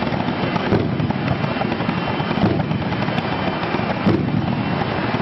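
Propane flame effects firing in sharp bursts, three of them about a second and a half apart, over a steady loud din.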